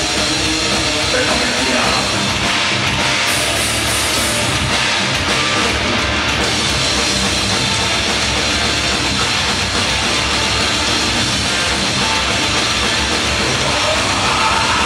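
Live heavy metal band playing loud, with distorted electric guitars and a full drum kit, without a break.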